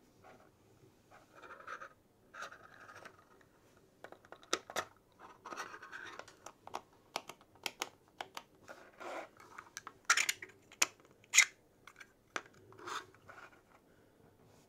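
3D-printed plastic parts of a display stand being handled and fitted together: rubbing and scraping, with a series of sharp clicks as pieces are pushed onto each other, the loudest clicks about two-thirds of the way through.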